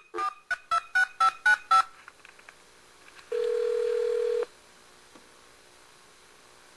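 A number being dialed on a touch-tone phone: about seven quick keypress beeps, each a two-note tone. About a second and a half later, one ring of the ringback tone sounds on the line for about a second while the call connects.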